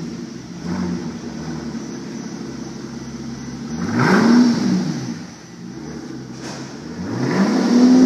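Mercedes S65's twin-turbo V12 running with its mufflers removed, idling and revved twice: a quick rise and fall about four seconds in, and another rev building near the end.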